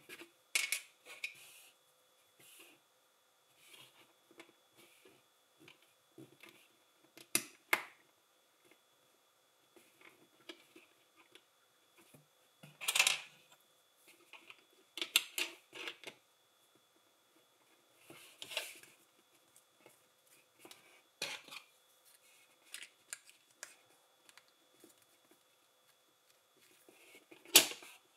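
Plastic LEGO pieces being handled and pressed together during a build: scattered light clicks and small rattles every second or two, with a few louder snaps and one longer rattle about halfway through.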